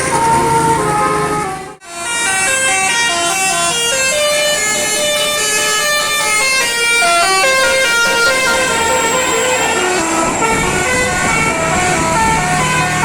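Telolet bus horn: a set of tuned air horns playing a quick melody of stepped notes, broken by a short gap about two seconds in.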